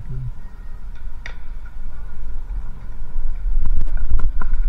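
Bicycle riding on a paved towpath: low wind and road rumble on the bike-mounted camera's microphone, with the camera mount knocking and rattling over the path. The knocks come once early on and in a loud cluster near the end.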